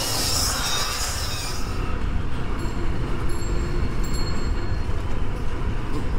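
Motorcycle riding noise: wind buffeting the microphone over the engine and road rumble as the bike moves along. A high hiss fades out about two seconds in.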